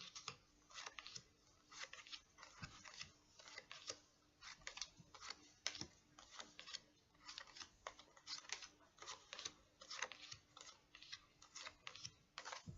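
Tarot cards being handled and laid down one at a time: a run of soft, irregular taps and slides, a few a second.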